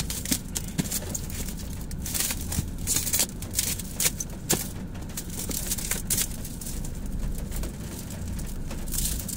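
Black plastic stretch wrap crinkling and crackling as it is pulled off its roll and wound tightly around a cardboard box, with irregular rustles and sharp snaps, over a low steady rumble.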